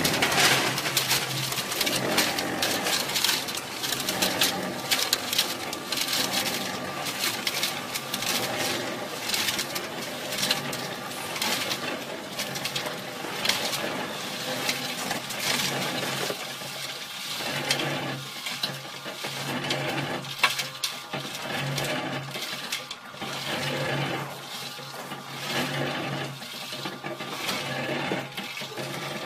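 Small electric concrete mixer running while tipped, wet concrete sliding and pouring out of its drum into a wheelbarrow with a continuous gravelly rattle and patter of small stones, over a steady low motor hum.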